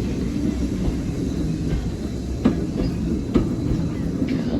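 Heritage train rolling along the track with a steady low rumble, its wheels clicking over rail joints a couple of times.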